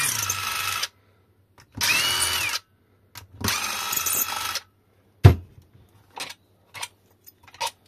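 Electric screwdriver running in three bursts of about a second each, with a whine, backing long screws out of the base of an e-bike battery pack's plastic case. A sharp knock comes a little over five seconds in, followed by a few faint clicks.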